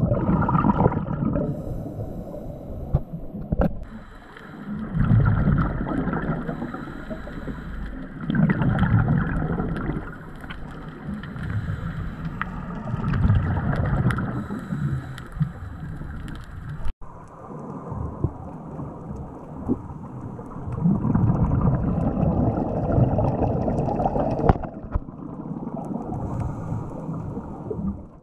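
Underwater bubble noise from a scuba diver's regulator exhaust, gurgling in swells about every four seconds with each exhaled breath. The sound cuts out briefly about two-thirds of the way through.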